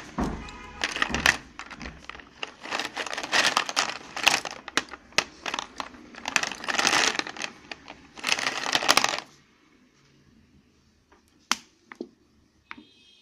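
Slate pencils clattering against one another and the plastic tray as a hand stirs through the pile: a dense run of light clicks and rattles. About nine seconds in it stops, and only a few single clicks follow.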